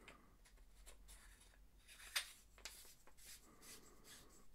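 Noctigon DM1.12 flashlight being screwed back together by hand: faint scraping of the threads and handling rubs, with a few small ticks and one sharper click about two seconds in.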